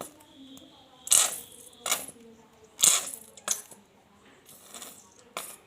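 A nearly empty squeeze bottle of thick glue being squeezed: a series of sharp sputtering spurts of air and glue, about one a second, as the bottle runs out.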